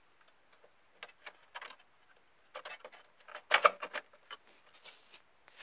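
Light clicks and scrapes of a graphics card being handled and pushed into its slot inside a desktop computer case, with a louder cluster of clicks about three and a half seconds in.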